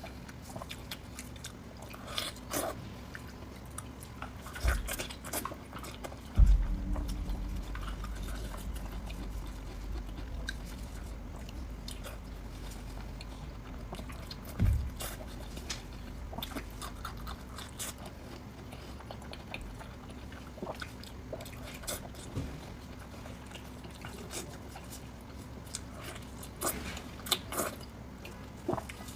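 Close-miked chewing and biting of sausage, with many short wet clicks of the mouth throughout. A few low thumps stand out, the loudest about six seconds in and another about fifteen seconds in.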